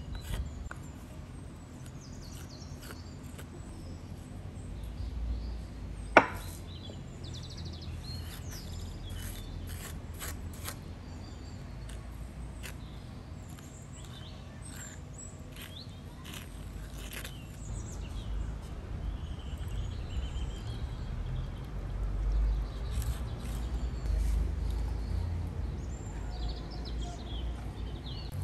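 Wooden spoon clicking and scraping against a wooden bowl as spices are stirred into a marinade, with one sharp knock about six seconds in. Birds chirp faintly in the background.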